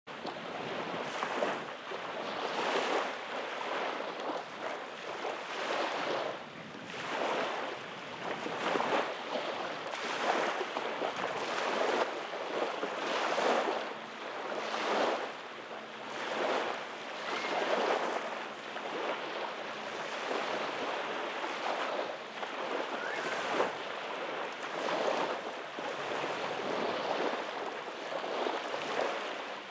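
Small waves lapping and washing up a sandy beach, a steady rushing wash that swells and fades every second or two.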